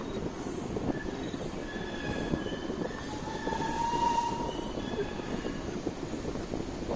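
Narrow-gauge toy train running, a steady rumble of wheels on the rails with short thin squeals from the wheels, the strongest about three to four seconds in.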